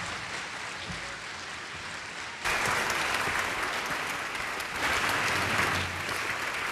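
Audience applauding, growing louder about two and a half seconds in.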